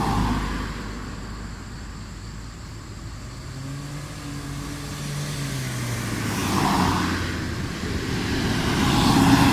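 Cars passing on a street one after another, the tyre and engine noise swelling and fading with each pass: one at the start, one about seven seconds in and another near the end. A low engine hum rises and falls in between.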